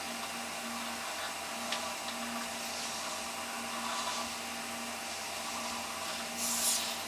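Hobby servo motors of a homemade four-servo robot arm whirring and buzzing as the arm follows the operator's movements, a steady hum that drops out and comes back several times.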